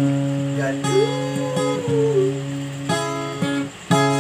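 Background music of strummed chords that ring on between strokes, a new chord struck every second or two, with a short melodic line rising and falling in the middle.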